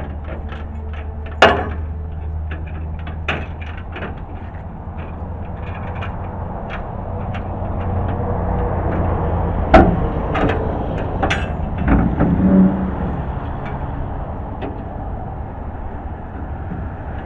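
Steel tailgate of a 1969 GMC stepside pickup being unlatched and lowered on its chains: a series of metal clanks and chain rattles, the loudest about ten seconds in, followed by a few more knocks.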